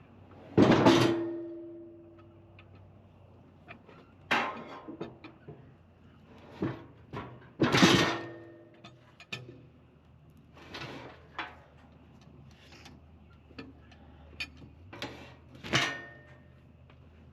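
Heavy wooden knocks and thuds as sawn lumber is knocked off a cant and flipped over on a sawmill bed. The two loudest blows come near the start and about eight seconds in, each with a short ringing after it, and lighter knocks fall in between.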